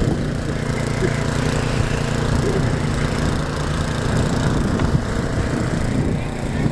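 Snowblower's small gasoline engine running steadily at a constant speed.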